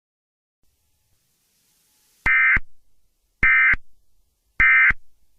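Emergency Alert System end-of-message code: three short bursts of warbling digital data tones, each about a third of a second long and a little over a second apart, starting about two seconds in. They mark the end of the alert broadcast.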